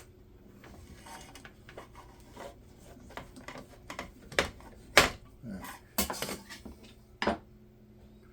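Small plastic and metal RC car parts being handled and fitted together by hand: a run of irregular clicks and clacks, several sharper knocks in the second half.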